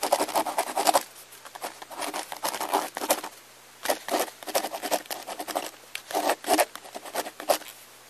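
A crimson rosella feeding, cracking and crunching seeds and grain in its beak and pecking at them on a wooden rail. The sound is a run of irregular sharp clicks and crunches that come in clusters with short pauses between them.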